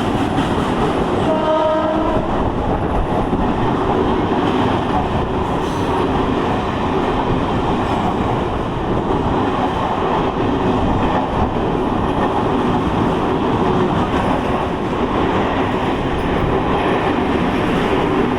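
A train running past on the track, steady and loud, with a short horn blast about a second and a half in.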